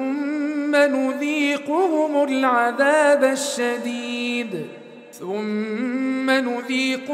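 A man chanting Quran verses in melodic tajweed style, drawing out long vowels with ornamented, wavering pitch. The voice drops away briefly about four and a half seconds in, as for a breath, then resumes.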